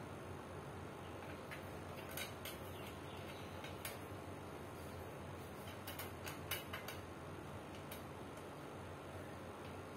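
Scattered light clicks and taps of plastic and metal fan parts being handled and fitted together on a standing fan's motor head and wire grille. A few come around two seconds in, then a tighter cluster about six to seven seconds in.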